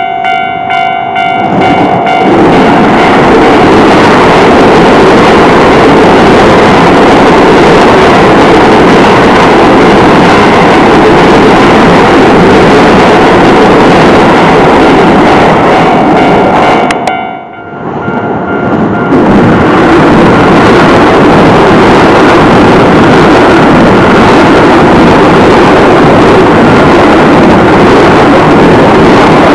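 Keio Line electric trains passing close by over a level crossing, with loud wheel and rail noise. The crossing's warning bell rings at the start. About two-thirds through, the train noise dips briefly and the bell is heard again before a second train passes.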